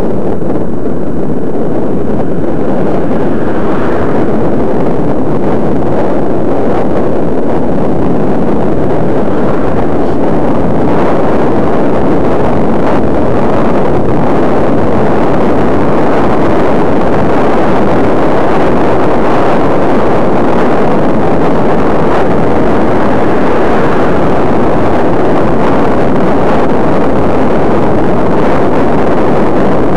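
Loud, steady rush of wind buffeting the microphone of a glasses-mounted camera on a moving bicycle.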